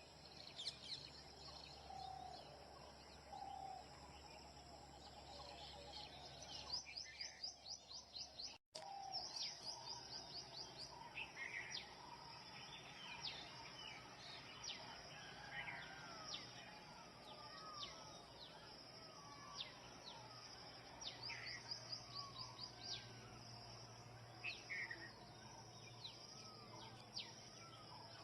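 Dawn chorus of several wild birds: many short chirps, whistled calls and rapid high trills, faint over a low background hiss. The sound cuts out for a moment about a third of the way through.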